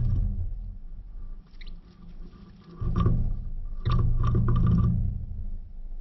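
Carolina wrens at the nest, close to the microphone: a flurry of wing flutter right at the start, then two short bouts of scrabbling and rustling in the dry grass and leaves of the nest, about three seconds in and again from four to five seconds.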